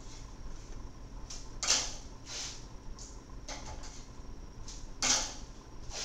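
Graphite pencil scratching across sketchbook paper in a series of short shading strokes, with two louder strokes about two seconds in and about five seconds in.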